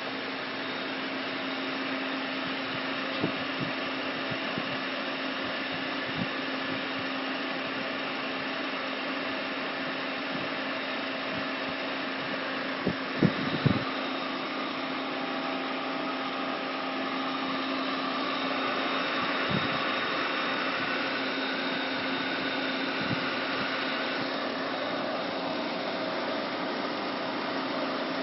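Myford MG12 cylindrical grinder running: a steady machine hum with a constant low tone, and a few short knocks about thirteen seconds in.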